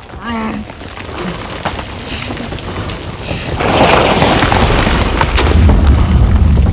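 A short wavering vocal cry near the start, then a deep rumbling boom that swells from about three and a half seconds in and holds as a loud, steady low rumble: a horror-film sound effect.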